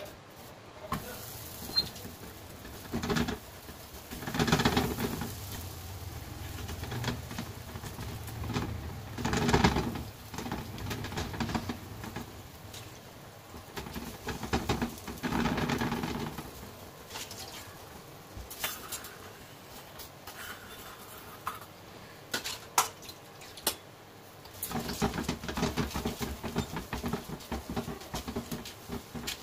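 Hands patting and pressing a ball of rice-flour dough flat on a tawa, in separate bursts of soft slapping. Near the end comes a denser, steadier stretch of rubbing as the dough is smoothed out.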